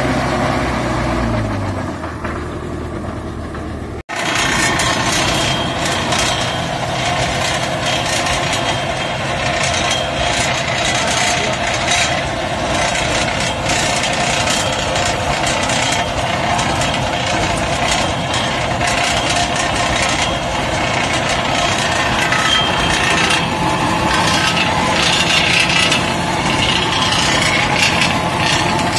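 Tractor engine running as it pulls a Mahindra super seeder through the field, with the seeder's working parts rattling in the soil. The sound cuts out for an instant about four seconds in and comes back denser and noisier, a steady mechanical clatter.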